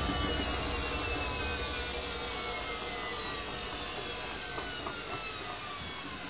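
Hoover A3308 Computer Control 1100 washing machine's motor and drum running down at the end of the final spin: a whine that falls steadily in pitch and slowly fades.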